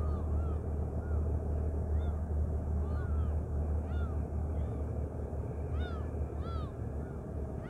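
Gulls calling over and over, short rising-and-falling cries, several in quick succession about six seconds in, over the low steady rumble of a car ferry pulling away from the terminal.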